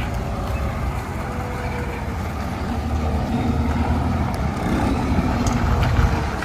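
Iveco Tector truck's diesel engine running, growing louder from about halfway through.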